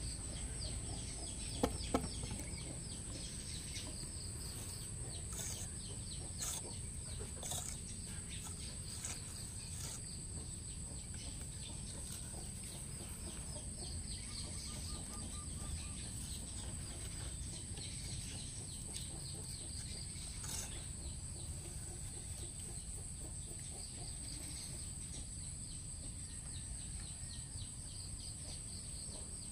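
Outdoor ambience: birds chirping over a steady low rumble and a constant high hiss, with two sharp clicks about two seconds in.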